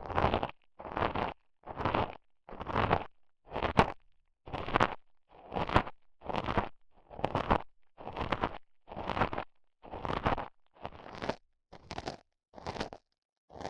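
Rhythmic rubbing or scraping strokes, about one a second and each about half a second long, with silence between, used as an ASMR trigger.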